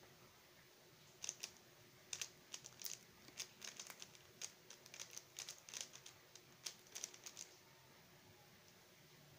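Xin Lexin stickerless 3x3 speedcube being turned fast in a solve: a quick, irregular run of sharp plastic clicks, several a second, that stops about three quarters of the way through as the turning ends.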